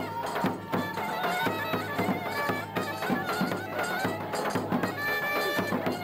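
Turkish folk wedding music: a clarinet plays a wavering melody over a steady davul drum beat.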